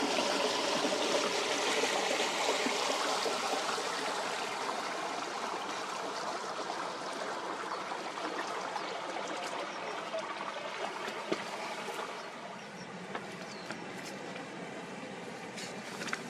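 River water rippling and lapping: a steady wash of water noise that eases a little near the end.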